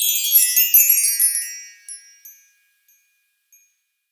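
A shimmering cluster of high, bell-like chimes, like a run of wind chimes or a magic-sparkle flourish, ringing out and fading away within about two and a half seconds, with a few last faint pings after that.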